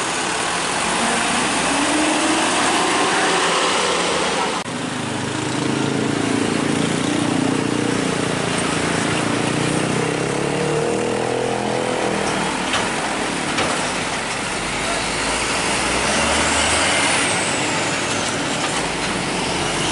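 Diesel truck engines pulling slowly across at close range, with tyre and road noise. After a sudden cut about five seconds in, a large truck's engine labours as it crosses, its pitch rising and falling, with a couple of light knocks a little past the middle.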